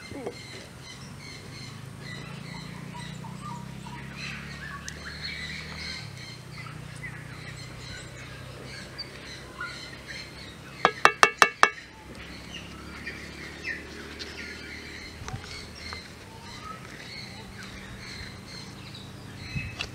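Birds chirping and calling steadily, over a low steady hum. About halfway through, a quick run of about six loud, sharp notes in under a second.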